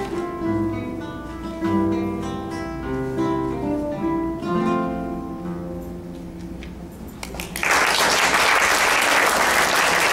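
Trio of classical guitars playing plucked notes together, the piece winding down and ending about seven seconds in. Then clapping starts and runs on, louder than the music.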